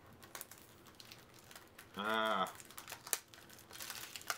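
Blister packaging being handled and pried at, with faint clicks and crinkles. About two seconds in, a short hummed vocal sound, like a low "mmm" lasting about half a second, is the loudest thing heard.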